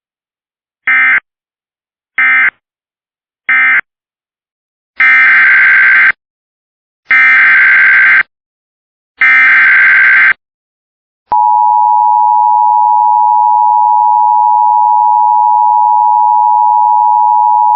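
Emergency Alert System digital tones: three short screechy SAME data bursts that mark the end of the previous message, then three longer SAME header bursts announcing a new alert. About eleven seconds in, a loud steady attention-signal tone starts and holds.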